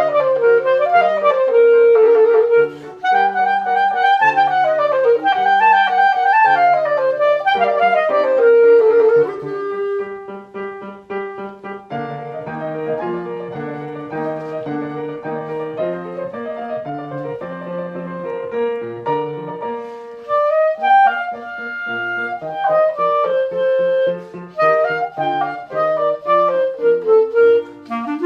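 Solo clarinet playing a melody with piano accompaniment. Partway through, the melody settles into a long held note over repeated piano chords, then moves again after a brief pause about 20 seconds in.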